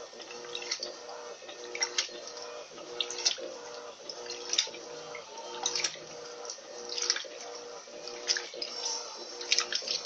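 Electrolux Turbo LT12B top-loading washing machine agitating a load on its high water level: water sloshes and splashes in a regular rhythm, a surge about every second and a quarter, over a motor hum that cuts in and out with each stroke.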